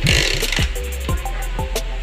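Background music with a steady beat: deep bass drum hits, short repeated melody notes and bright cymbal-like hits.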